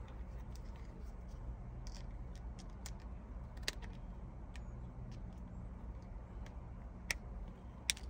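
Small sharp clicks and ticks of metal ignition lock cylinder parts being handled and fitted together, as the retaining ring that holds the lock is put back. One louder click comes a little past the middle and two more near the end, over a steady low hum.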